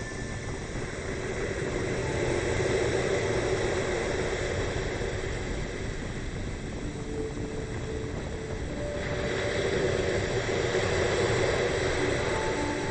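Storm surf and wind on the Sea of Azov: a steady rush of waves breaking on the shore, swelling louder twice.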